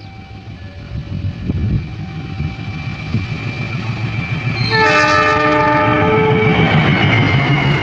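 CC201 diesel locomotive's engine rumbling louder as the train comes on, then its horn sounding a chord for about two seconds just under five seconds in. After the horn the train's noise stays at its loudest.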